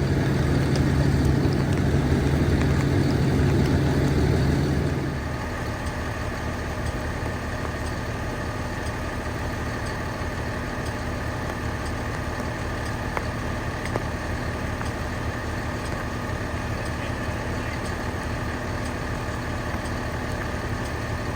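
Large vehicle engine idling steadily. About five seconds in, a louder low hum drops away, and a quieter steady engine hum carries on.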